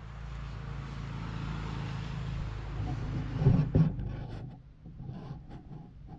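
A low engine hum, growing louder over the first few seconds. Two heavy thumps come about three and a half seconds in, followed by a patter of small clicks and knocks.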